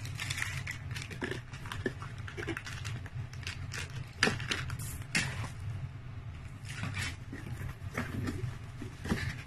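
Bubble wrap and a plastic pouch crinkling and rustling as they are handled, with scattered sharp crackles and taps, over a low steady hum.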